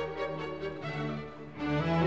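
Background music with bowed strings playing held notes, growing louder near the end.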